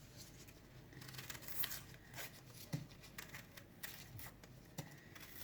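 Dry, papery outer skins of a red onion being peeled off by hand: faint crinkling and tearing with small scattered clicks.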